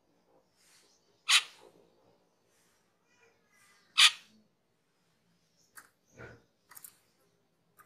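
Asian glossy starling (cucak keling) giving short, sharp single calls, two loud ones about two and a half seconds apart, then several softer short notes near the end.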